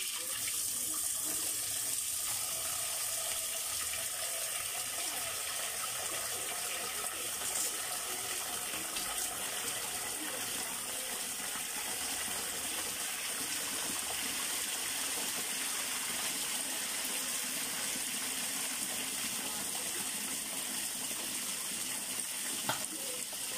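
Water running steadily from a kitchen tap, stopping near the end.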